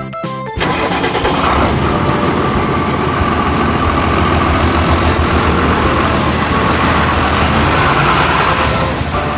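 Truck engine running steadily, a loud low rumble with a rushing hiss over it. It cuts in sharply about half a second in and eases off near the end.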